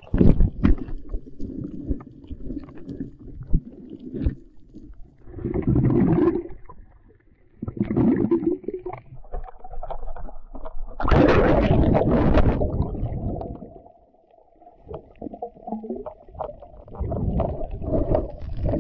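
Swimmer's splashing and bubbling in the sea, heard through an action camera dipping under and back above the water: muffled underwater gurgling in uneven swells, with a louder burst of splashing a little after the middle.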